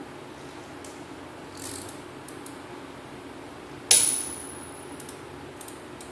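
A single sharp metallic clink about four seconds in, followed by a high ringing tone that fades after about a second, over a steady low hum. A soft brief rustle comes shortly before.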